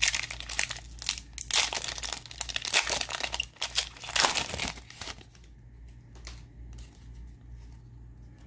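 Foil-plastic wrapper of a Donruss football card pack crinkling and tearing as it is ripped open by hand. After about five seconds it dies down to faint rustling and clicks as the cards are slid out and handled.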